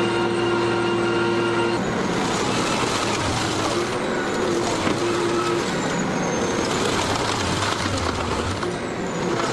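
Heavy scrap-yard machinery handling scrap metal: a steady mechanical hum for the first couple of seconds, then a dense, noisy rumble of the equipment working, with a few faint high squeals.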